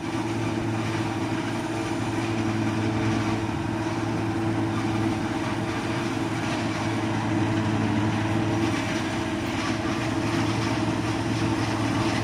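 Tractor-powered forage chopping machine running at a steady pace, a constant engine drone with an even low hum and no let-up.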